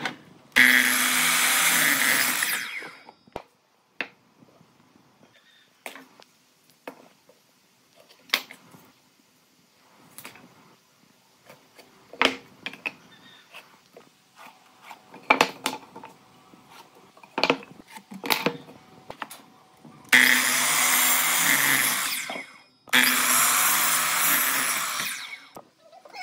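A handheld power tool's motor runs in three bursts of about two to three seconds each, once near the start and twice near the end, its pitch wavering as it takes load. Scattered knocks and taps of wood and tools being handled come between the bursts.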